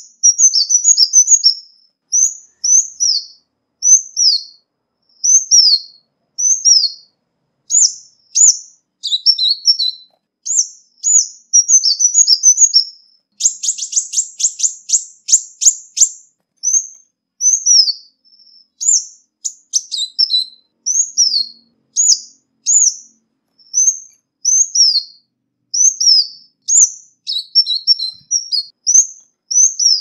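Ruby-cheeked sunbird calling: a steady series of short, high, downslurred notes, often in pairs, broken by quick twittering phrases. About halfway through comes a rapid run of ticking notes lasting about two seconds.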